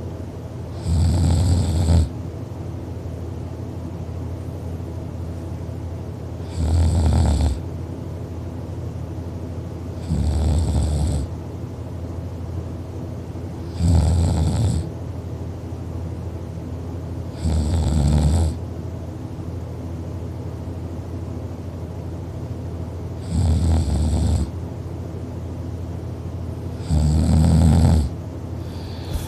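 A person snoring in sleep: seven snores, each about a second long, coming every three to four seconds over a steady low hum.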